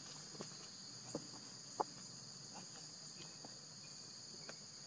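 Steady high-pitched insect chorus holding two even tones, with a few soft clicks in the first two seconds.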